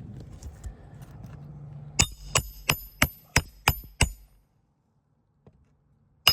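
Hammer driving 1-inch roofing nails through an asphalt shingle: seven quick, sharp ringing blows at about three a second, starting about two seconds in. One more blow lands near the end.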